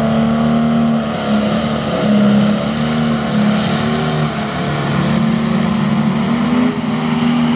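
John Deere pulling tractor's diesel engine running at full power under heavy load as it drags a weight sled. There is a steady, loud engine note and a thin high whine that climbs over the first few seconds and then holds.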